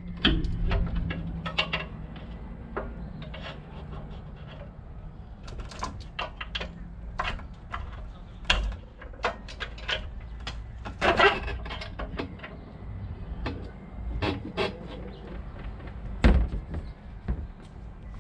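Irregular knocks and clanks, several sharper ones about eleven and sixteen seconds in, over a low steady hum.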